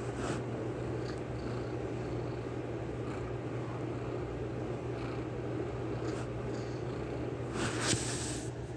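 Kitten purring steadily, close to the microphone, with a brief rustle near the end.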